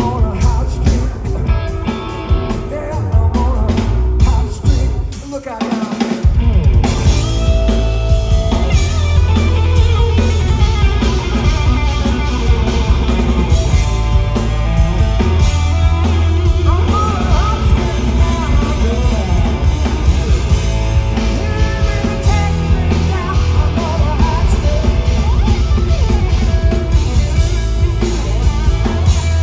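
Live rock trio playing: electric guitar, bass guitar and drum kit, with a sung lead vocal. About five seconds in, the bass and drums drop away for a moment, then the full band comes back in.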